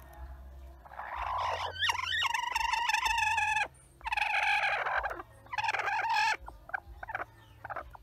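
Broody hen's defensive calls at a hand reaching into her nest: three long calls, then several short ones near the end.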